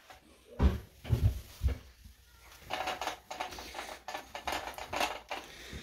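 Hands handling a plastic bidet attachment and its hose fittings: a few dull knocks about a second in, then a run of light clicks and rattles.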